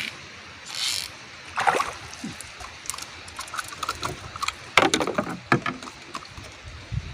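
Sounds of working in a small boat: two short splashing swishes about a second apart at the start, then a run of sharp knocks and clicks on wood, loudest about five seconds in.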